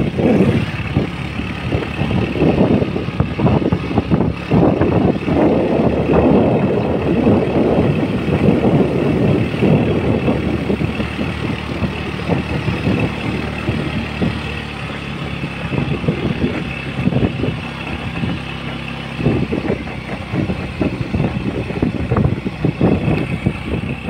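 Motorbike engine running steadily while riding, with wind buffeting the microphone in irregular gusts; another motorbike passes close by near the start.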